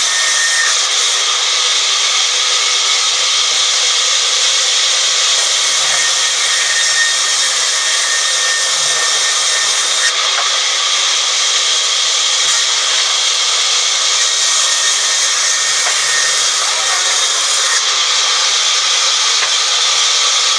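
Sawmill band saw cutting lengthwise through a teak log, a loud, steady saw noise that runs on without a break.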